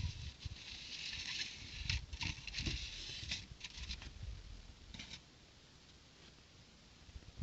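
Rustling and small clicks from handling plastic building-brick pieces and their packaging, busiest over the first few seconds and dying away about five seconds in.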